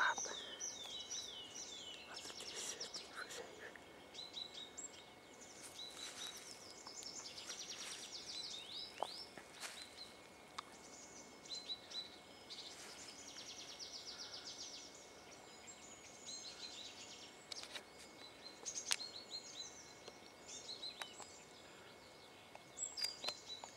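Several songbirds singing and calling: many short high chirps, slurred notes and quick trills overlapping, with a couple of sharp clicks about nine and nineteen seconds in.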